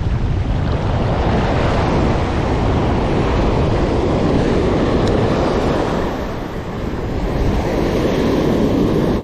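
Ocean surf breaking and washing up the beach in a steady rush, with wind rumbling on the microphone. The wash eases briefly about two-thirds of the way through.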